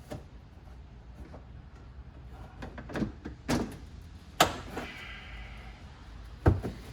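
Plastic interior trim and its clips being worked loose by hand: a series of sharp clicks and knocks with a short scrape in the middle, the loudest snap near the end.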